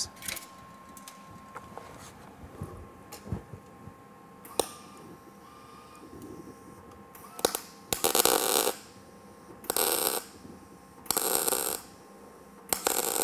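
Eastwood MIG 175 welder laying tacks on 20-gauge sheet steel with .025 wire under 75/25 argon shielding gas. There are four short bursts of arc crackle and pop, each about half a second, starting about eight seconds in: the "sound of bacon frying" that marks a correctly set arc. Before them come a few light clicks of handling.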